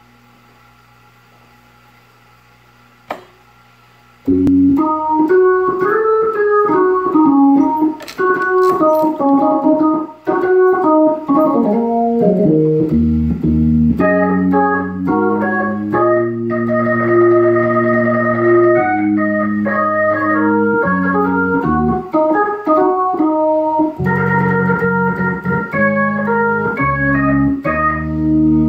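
Hammond tonewheel organ played with its percussion effect on. A faint steady hum and a single click come first. About four seconds in, the playing starts with a quick single-note melodic run, then moves to held chords with bright upper notes from about halfway.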